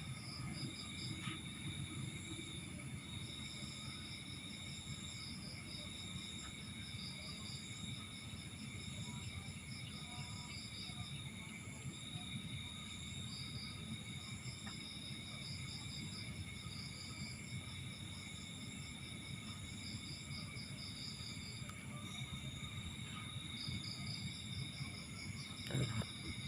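Faint insects, crickets, chirping in rapid pulsing trains that start and stop every few seconds, over steady high-pitched tones and a low hum.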